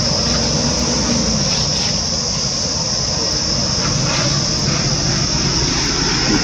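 A chorus of insects droning steadily at a high pitch, over a low, even background rumble.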